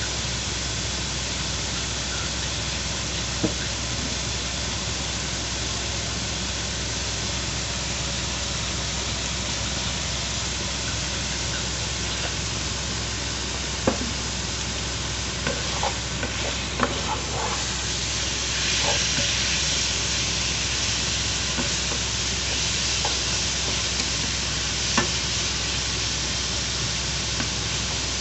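Thin slices of raw meat frying in oil in a nonstick pan, a steady sizzle that grows brighter about two-thirds of the way in. A wooden spatula stirs the meat, with a few sharp clicks and scrapes against the pan, most of them past the middle.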